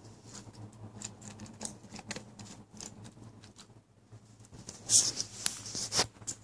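German shepherd crunching dry kibble: irregular sharp crunches and clicks, loudest in a cluster about five and six seconds in.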